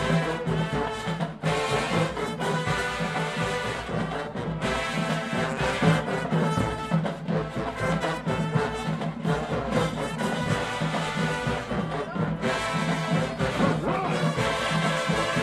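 Marching band playing: a brass section with trombones and trumpets carries the tune over drums, continuously.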